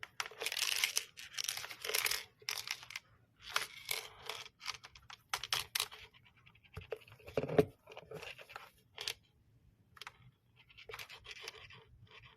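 Product packaging being handled and torn open by hand: irregular bursts of tearing, scratching and crinkling, with scattered clicks.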